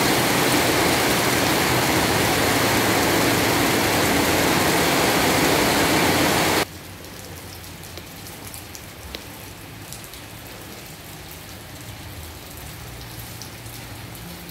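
Heavy rain pouring down as a loud, steady hiss. About two-thirds of the way through it drops suddenly to a much quieter light rain with scattered drips.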